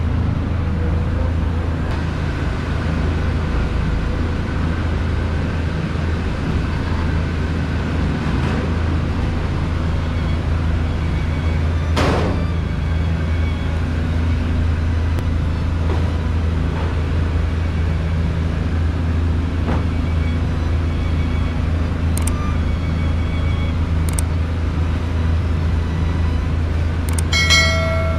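Steady low hum and rumble of kitchen equipment, with a sharp knock about twelve seconds in and a few light metallic clinks later. A short ringing chime sounds near the end.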